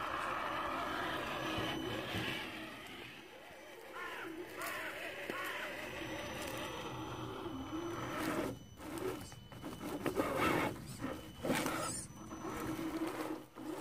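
A 1/10-scale Axial SCX10 RC crawler's electric motor and gears whining, the pitch rising and falling with the throttle. Between about 8 and 12 seconds, a run of sudden scraping and crunching as its tyres claw over dirt and leaf litter.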